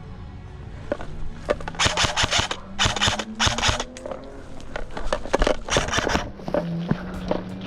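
Rustling and scraping in short repeated bursts, about half a second each, with scattered clicks, as someone pushes through brush. Music plays faintly underneath.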